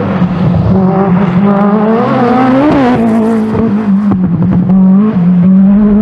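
Group B rally car engine at high revs under full throttle, holding a steady note with a brief rise and a couple of short dips as the throttle is eased and reapplied.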